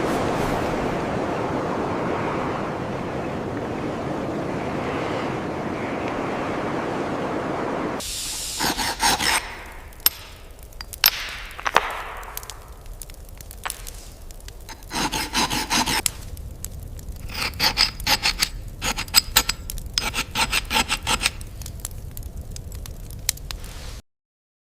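A steady rushing noise, then from about eight seconds in a run of short scrapes, rubs and clinks, some ringing, cutting off suddenly near the end.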